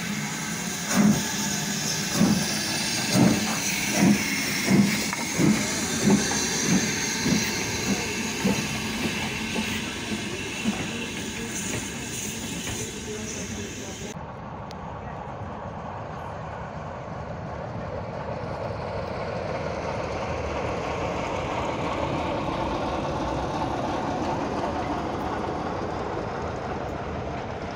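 BR Standard Class 9F steam locomotive 92214 pulling away with a train: loud exhaust beats over a steam hiss, quickening from about one a second to nearly two a second over the first ten seconds as it gathers speed. After that come the coaches rolling past as a steady rumble.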